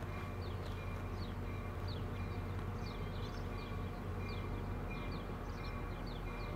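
Birds chirping in short, quick falling notes over a steady low rumble from an approaching New Jersey Transit diesel push-pull commuter train.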